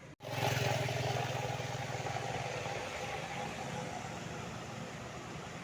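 A road vehicle's engine running close by with a low, pulsing note. It starts abruptly, is loudest in the first second, and eases off over the next few seconds as the vehicle passes.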